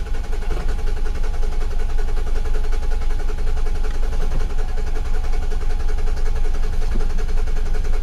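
2008 Nissan Quest's 3.5-litre V6 cranking over steadily on the starter without catching, the crank-no-start fault being diagnosed. Under it the fuel pump whines, really loud.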